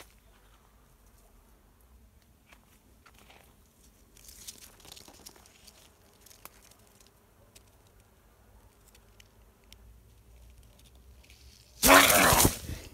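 Plum tree leaves and twigs rustling against the microphone as it moves through the branches: a soft rustle about four seconds in, then a loud, brief crunchy brush of leaves near the end.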